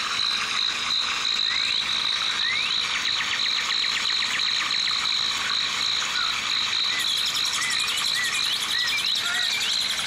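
Tropical forest ambience: a steady, pulsing insect trill, with frog-like calls and, in the last few seconds, short bird chirps.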